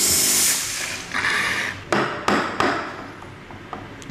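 Thermoblock steam wand of a Ferratti Ferro FCM 3012 espresso machine purging: a loud hiss of steam that is shut off about half a second in. A shorter hiss follows, then three sharp knocks as the steel milk pitcher is tapped on the counter to settle the foam.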